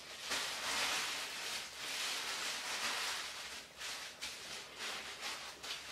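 Rustling of a cap being pulled on and settled over a plastic shower cap on the head: uneven swishing that rises and falls.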